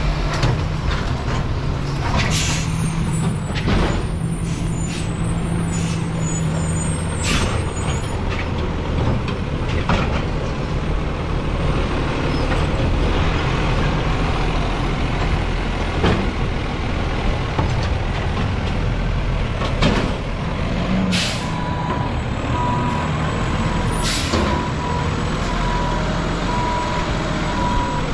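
Freightliner Condor refuse truck's turbo diesel engine running steadily, with repeated bangs and clanks from collecting recycling. A steady electronic beeping comes in during the last several seconds.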